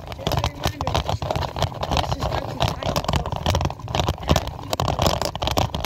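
Bicycle rolling over a brick-paved street: a continuous rough rumble with many small irregular knocks and rattles as the tyres cross the bricks.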